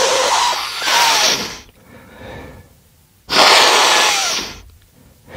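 Two loud, long slurping sips of apple-infused whiskey close to the microphone. The first is already under way and stops before the two-second mark. The second starts after about three seconds.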